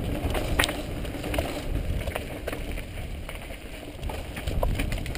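Mountain bike rolling over a dirt and stony trail, heard from the rider: a steady low rumble with scattered sharp clicks and knocks as the bike rattles over stones.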